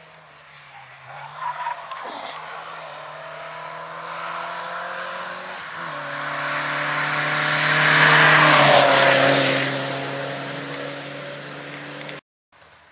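Rally car coming up the stage at speed, its engine note shifting a couple of times as it changes gear, growing louder to pass close about eight seconds in with a rush of tyre noise, then fading away. The sound cuts off abruptly near the end.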